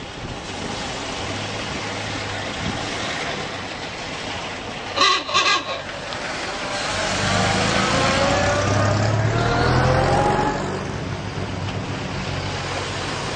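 A car horn gives three short honks about five seconds in, over a running engine. Then a vintage car's engine revs and pulls away, rising in pitch and getting louder for a few seconds before easing off.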